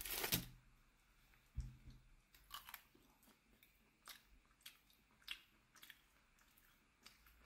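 A person chewing a mouthful of sausage with a crunchy filling: faint, irregular crunchy clicks of the bite being chewed.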